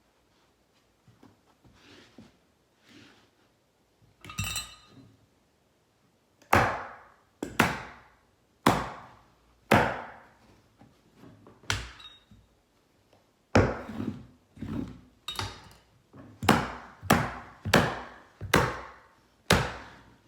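A series of about a dozen sharp knocks, each with a short ringing tail, coming at irregular intervals about a second apart from roughly a third of the way in. They are typical of a carpet runner being fastened down onto a wooden stair. A brief metallic rattle comes just before them.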